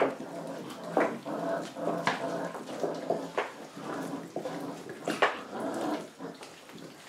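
Rottweiler puppies growling over scraps of raw meat as they feed, broken by several sharp yelps.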